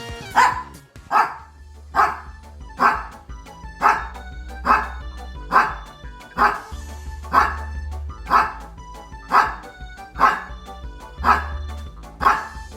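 A small dog barking over and over at an even pace, a little more than once a second, over background music with a steady bass line.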